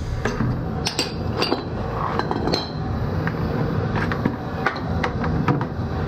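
Scattered sharp metallic clinks and knocks of tools and a bucket being handled, over a steady low hum.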